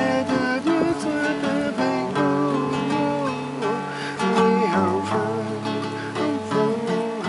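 Nylon-string classical guitar played with plucked chords and notes, with a melody above it that bends and wavers in pitch.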